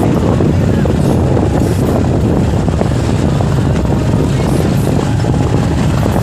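Loud, steady rush of wind buffeting the microphone of a camera on a moving vehicle, with road and engine rumble underneath.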